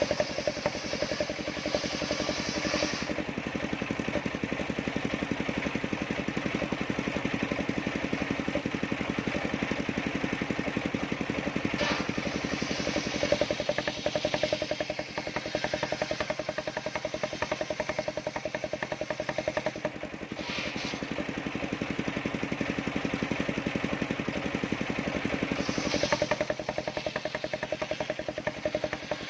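Engine-driven circular sawmill running with a steady, pulsing engine drone. There are brief sharper flares at about 12, 20 and 26 seconds.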